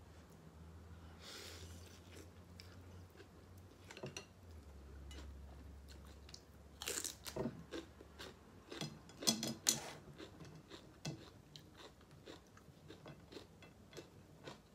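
Close-miked eating of pho: chewing and crunching mouth sounds with sharp clicks, densest and loudest about seven to ten seconds in. A faint steady low hum runs underneath.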